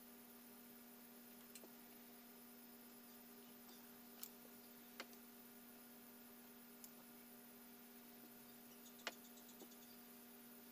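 Near silence: a steady faint electrical hum, with four faint small clicks spread through it.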